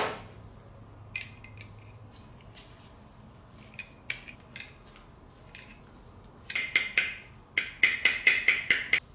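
Sharp taps on a new ATV axle's dented protective cap, knocking it back round: a few scattered light clicks, then a cluster of strikes and a quick run of about eight ringing taps near the end.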